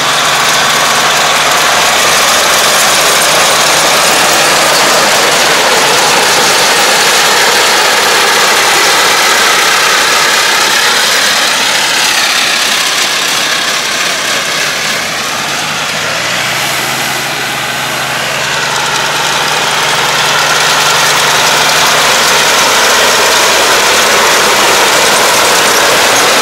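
Yanmar tractor's diesel engine running as it pulls a Takakita RB-950W round baler picking up rice straw, the engine and baler working steadily. It gets somewhat quieter around the middle as the machine moves farther off, then louder again near the end as it passes close.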